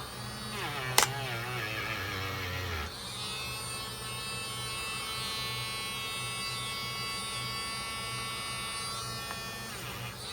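A small electric motor buzzing steadily from about three seconds in, after a few seconds of wavering tones and a single click about a second in.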